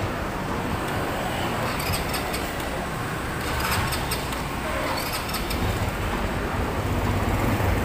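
Street traffic noise with a steady mix of passing vehicles; a vehicle's low rumble grows louder over the last couple of seconds.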